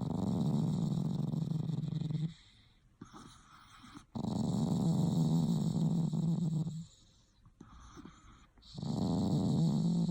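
A pet making three long, low, rattling rumbles a couple of seconds apart, in an even breathing rhythm; the owner can't tell whether it is snoring or growling.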